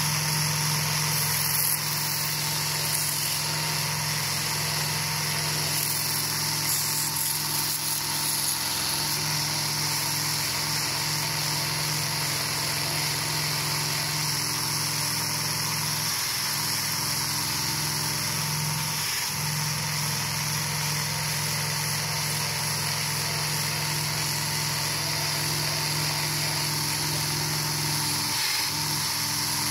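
Handheld electric power tool with a wire brush attachment running steadily while scrubbing rust and flaky paint off a boat's window frame. The motor note dips briefly a few times, around the middle and again near the end.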